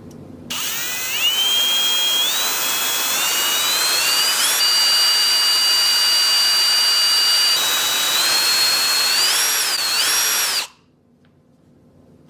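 Electric drill running, drilling a hole into an iPhone 7 for a headphone jack. Its whine rises in steps as it speeds up, holds steady in the middle, wavers near the end and cuts off suddenly, leaving quiet for the last second and a half.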